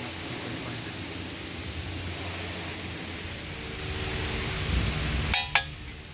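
Two sharp metallic clinks, a fraction of a second apart near the end, as metal tools or parts knock together, over a steady hiss and low hum.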